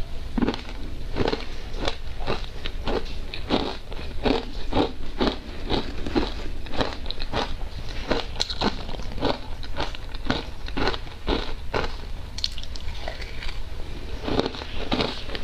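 Ice dusted with matcha powder being bitten and chewed, a steady run of crisp crunches about two a second.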